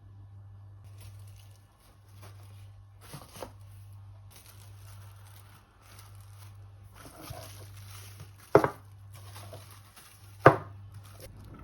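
Small handling and rustling sounds over a steady low hum, then two sharp knocks about two seconds apart near the end.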